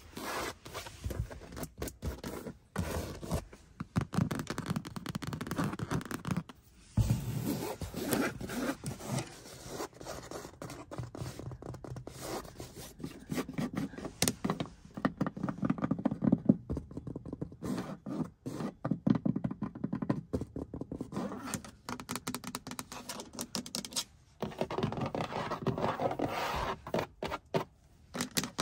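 Fingernails scratching and tapping on a car's interior, in quick, dense strokes: first the perforated leather seat upholstery, later the fabric headliner and sun visor, with a few brief pauses.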